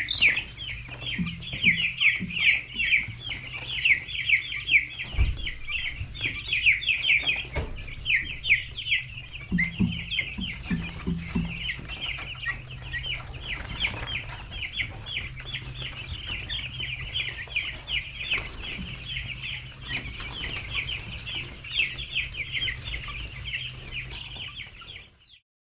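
A crowd of young chickens peeping without pause, many short high peeps overlapping, over a low steady hum. It all cuts off suddenly near the end.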